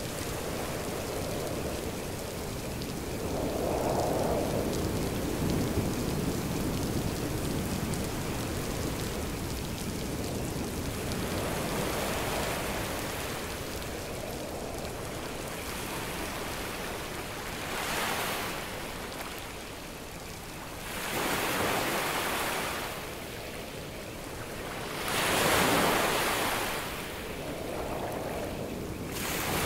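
Ocean surf mixed with rain: a steady wash of noise that, from about halfway, turns into waves rushing in and falling back every three or four seconds, the loudest wave near the end.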